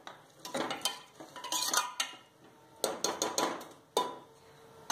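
Steel ladle stirring rice, vegetables and water in a pressure cooker, clinking and scraping against the pot in about four short bouts.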